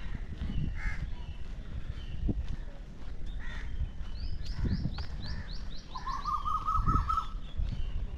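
Birds calling in the trees: two rapid series of high, falling chirps and, about six seconds in, a louder and lower trill lasting about a second and a half, over a steady low rumble and a few soft thumps.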